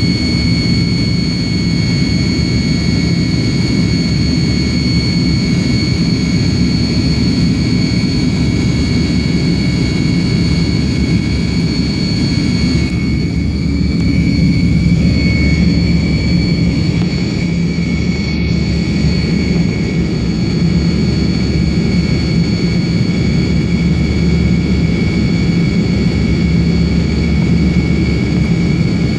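Cabin noise of a Tupolev Tu-154M climbing out after takeoff: the steady rumble of its three tail-mounted Soloviev D-30KU-154 turbofans, with a high whine running over it. For a few seconds about halfway through the sound goes duller.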